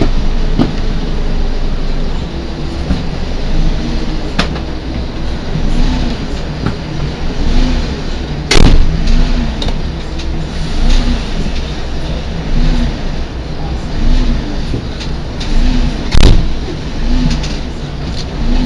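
Fire engine's engine idling, a steady low rumble, with a low rising-and-falling tone repeating about once a second and a few sharp knocks, the loudest about halfway through and again near the end.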